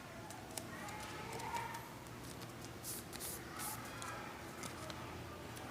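Paper being handled and creased, with short crackles and clicks, over faint indistinct voices in the background.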